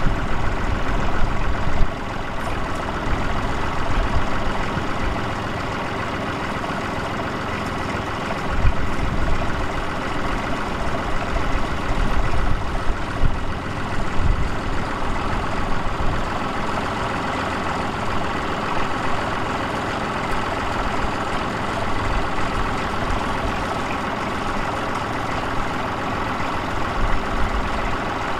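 Bukh Juno tractor's diesel engine idling steadily.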